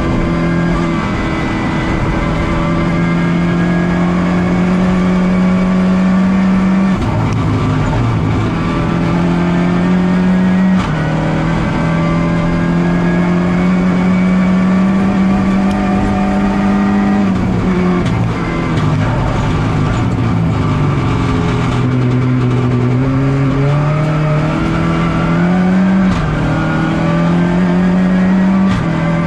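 Rally car engine heard from inside the cockpit, run hard at high revs through the gears. Its pitch holds high, then drops abruptly at each gear change, sags lower for a few seconds about two-thirds through as the car slows, and climbs again.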